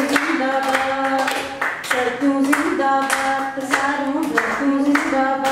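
A woman singing a Sindhi anthem unaccompanied, with people clapping along in a steady rhythm of about two to three claps a second.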